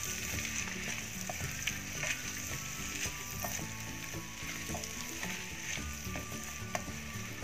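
Wooden spatula stirring and scraping peas, crumbled paneer and spice powders frying in oil in a metal kadhai. A steady sizzle runs under scattered clicks and scrapes of the spatula against the pan.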